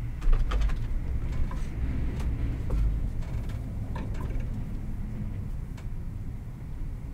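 Hands working at a computerized embroidery machine: a low thump just after the start, then scattered light clicks and taps over a steady low hum.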